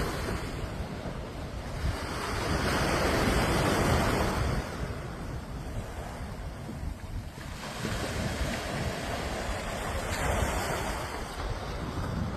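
Sea waves breaking and washing ashore. They surge louder about two seconds in and again about eight seconds in.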